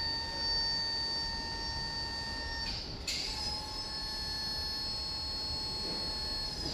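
BT SPS16 stand-on electric pallet stacker running, with a steady high electric-motor whine. About three seconds in there is a brief swish, and the whine carries on at a slightly shifted pitch.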